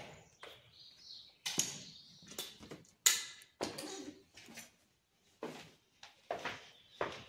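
Footsteps crunching and scuffing on a gritty concrete floor scattered with plaster and tile debris, in an irregular walking rhythm.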